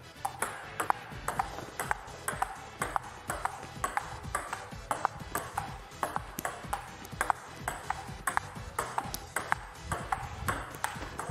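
Table tennis rally: the plastic ball clicking back and forth off rubber paddles and the tabletop, a steady run of sharp ticks about two or three a second.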